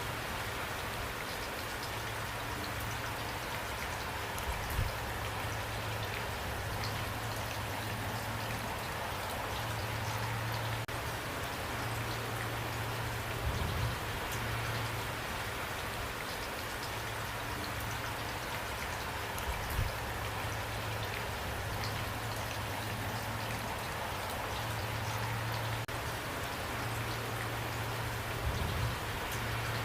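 Steady rain falling, an even patter with a low steady undertone. A few brief low thumps are spread through it.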